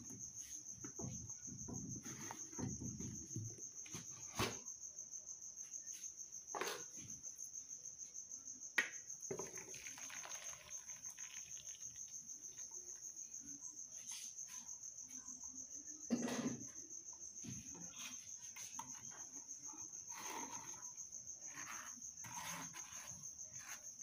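A cricket chirping steadily at a high pitch in a fast, even pulse. A few sharp knocks and brief clatter come from the blender jar and metal strainer as blended lemon is poured through the strainer into a glass bowl.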